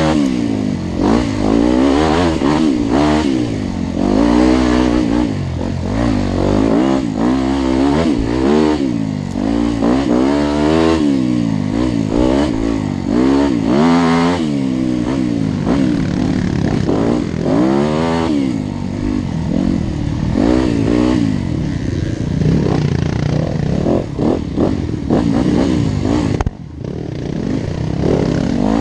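Engines revving up and down over and over, their pitch rising and falling every second or two, several at once. The sound briefly drops away about 26 seconds in.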